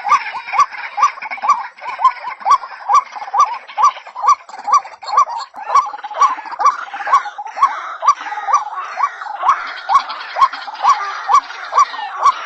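White-breasted waterhen (ruak-ruak) calling, a short upward-hooked note repeated about twice a second without a break, over a busier layer of overlapping calls.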